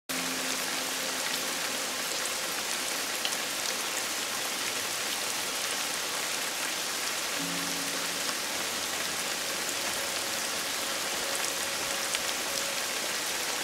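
Heavy tropical rain pouring down steadily, an even hiss of downpour in a monsoon storm.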